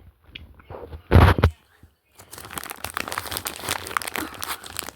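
Close-up crinkling and crackling, dense and irregular, from about two seconds in, after a short loud burst of noise about a second in.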